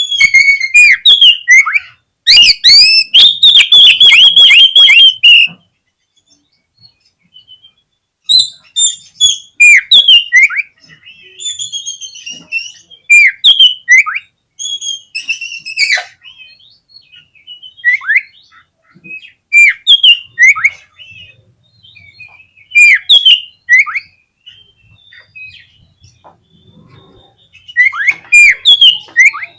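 Oriental magpie-robin singing loud whistled phrases of sharp falling notes. About two seconds in comes a dense, rapid chattering run lasting about three seconds. After a short pause, the song goes on as separate phrases every second or two.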